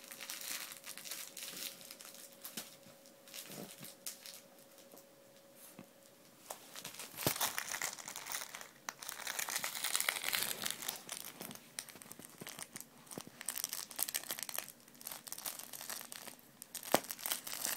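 A puppy chewing and wrestling a plush zebra toy on carpet: irregular rustling and crinkling of the toy's fabric, with small clicks and knocks, coming in uneven bursts.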